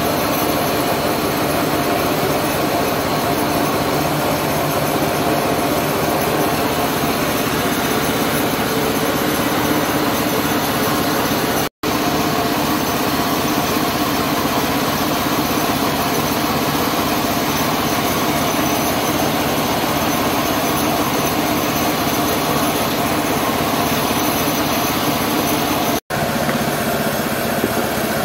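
Small petrol engine running a livestock-feed chopper, a steady loud machine drone. The sound cuts out for an instant twice, about 12 s and 26 s in.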